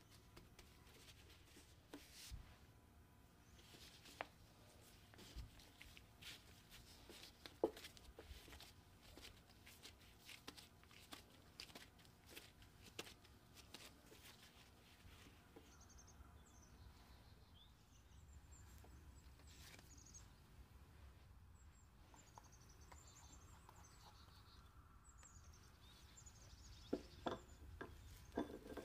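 Near silence with faint taps, pats and rustles of gloved hands pressing and shaping dough on a wooden board. A few louder knocks come near the end.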